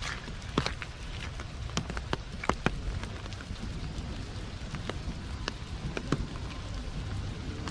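Heavy rain falling steadily, with large drops landing close by in sharp, irregular ticks.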